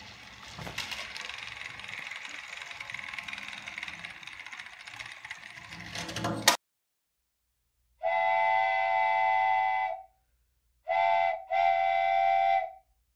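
Trackmaster motorized toy train engines whirring along plastic track, ending in one sharp crash as they collide about six and a half seconds in. After a pause of silence, a steam train whistle sounds one long blast, then a short blast and a longer one.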